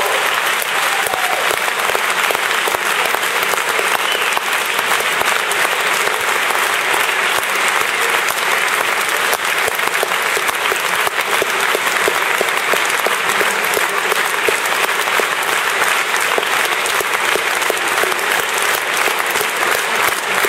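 Spectators applauding steadily, dense sustained clapping from a large crowd in a sports hall.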